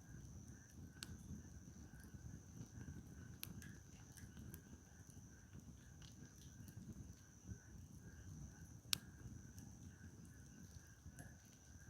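Firewood burning in an open campfire, crackling with scattered sharp pops; one loud snap about nine seconds in.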